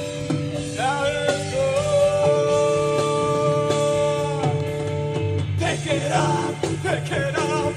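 Band music with singing: a voice holds long notes over guitar and bass, then moves into a quicker melody about five and a half seconds in.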